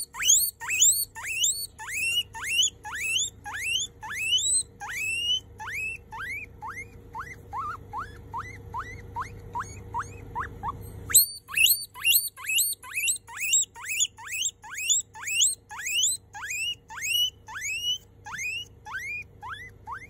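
Young guinea pig wheeking: a long run of short squeals, two to three a second, each sweeping up in pitch, with a brief break near the middle.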